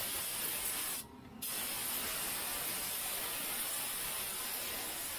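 Compressed-air blow gun blasting a steady hiss of air into a transaxle housing, let off briefly about a second in and then squeezed again.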